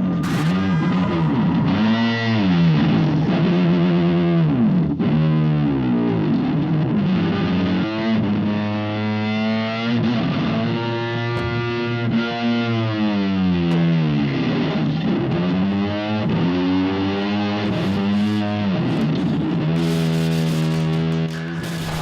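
Handmade car engine sound effect, a rough, distorted drone that revs up and down in pitch again and again.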